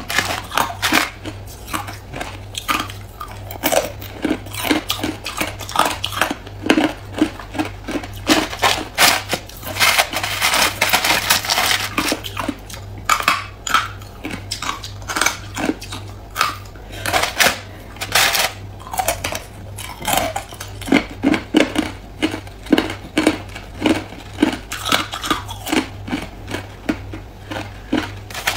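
A person biting and crunching hard clear ice, close up: a rapid run of sharp cracks and crunches, several a second, with bits of ice clinking against each other.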